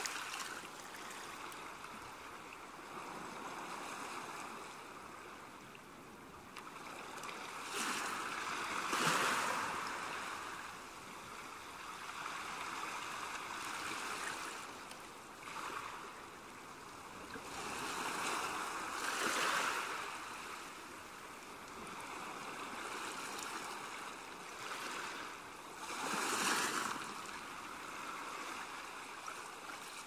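Ocean surf washing onto a beach: a steady rush of water that swells into a louder breaking wave about three times, roughly every eight to ten seconds.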